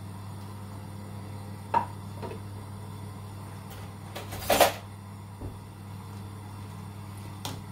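A few knocks and clatters of a spoon against a metal saucepan as lemon peels are stirred in hot water, the loudest clatter about halfway through, over a steady low hum.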